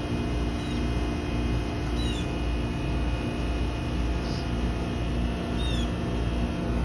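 2008 Trane XR13 heat pump outdoor unit running steadily in defrost mode: an even hum with several constant tones. Two short, high, falling chirps stand out, about two seconds in and near six seconds.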